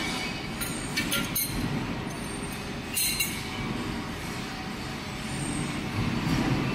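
Steady rumble of workshop machinery with several sharp metallic clinks of a steel wrench on the lathe's faceplate clamps in the first second and a half, and a louder clink about three seconds in.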